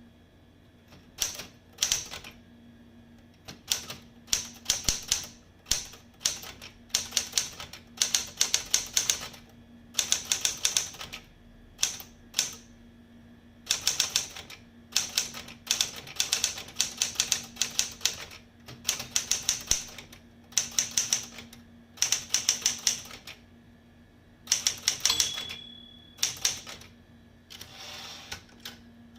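SCM Sterling 12 manual typewriter being typed on: quick runs of key and typebar strikes in bursts, with short pauses between words. Near the end the margin bell rings once, briefly.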